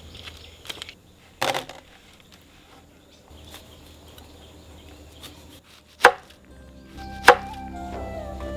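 Kitchen work: a few scattered sharp knocks and a short clatter, spaced seconds apart, with the sharpest knocks near the end. Soft melodic background music comes in during the last second and a half.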